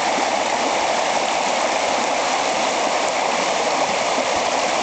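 Shallow river running over a stony riffle: a steady, even rush of water.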